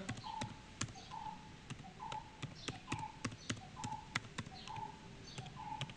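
Computer keyboard keys clicking irregularly as a password is typed. A faint short tone repeats about once a second behind it.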